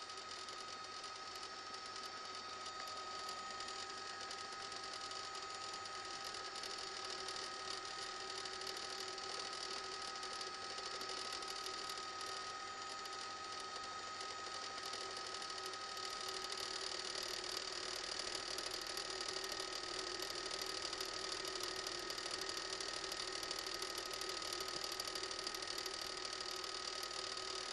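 Helicopter cabin noise: the engine and rotors make a steady hum with a constant high whine. It grows a little louder about two-thirds of the way through.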